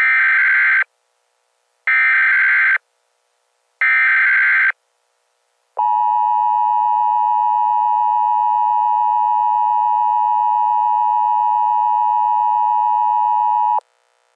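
Emergency Alert System header: three short bursts of warbling SAME data tones, about a second apart, followed by the EAS two-tone attention signal held steady for about eight seconds and cut off abruptly. This marks the start of a new emergency alert.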